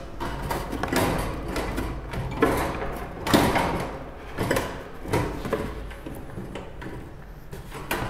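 Wooden nest box knocking and rattling against a wire bird cage as it is fitted and fixed in place, a series of separate knocks over the first several seconds.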